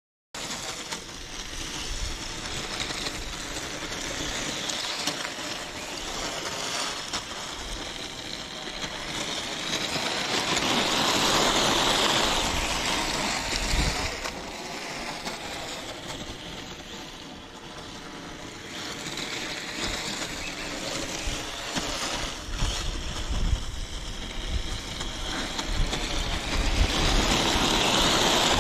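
Two 3D-printed RC snow tanks driving on a snow track: their brushless motors whine, rising and falling in pitch as they speed up and slow, over a rushing noise from the tracks. It swells twice, around the middle and near the end.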